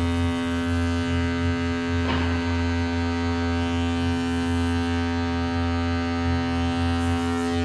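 Live band music: a sustained low drone chord holding one steady pitch, with a wavering low bass underneath and a brief accent about two seconds in.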